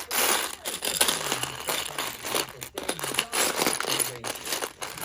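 Plastic packaging being crinkled and rustled close to the microphone: a dense, irregular crackling that stops suddenly about a second after the end.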